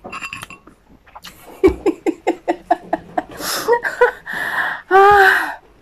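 A woman's vocal reaction to the burn of hot chili: a quick run of short 'ha' sounds, about six a second, then breathy exhalations and a drawn-out open-mouthed 'aah' near the end.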